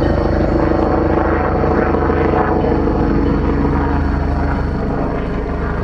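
NJ Transit PL42AC diesel-electric locomotive's engine running steadily at a constant pitch, with no revving.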